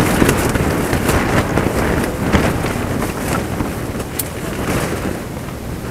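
Heavy rain falling with wind, a dense steady rush with many sharp drop impacts through it, easing slightly toward the end.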